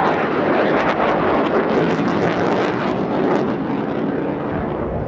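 Panavia Tornado IDS's twin RB199 turbofans running at high power with afterburners lit as the jet climbs away: a loud, steady jet roar with a crackle through the middle seconds, easing slightly near the end.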